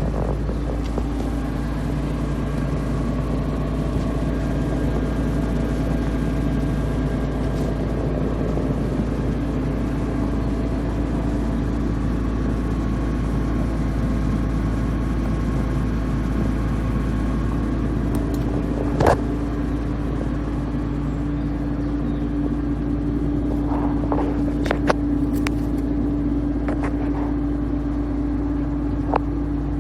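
Atlas 190 LC tracked excavator's diesel engine running steadily, with a steady hum that strengthens about halfway through. Sharp knocks come once about two-thirds of the way through and twice more near the end.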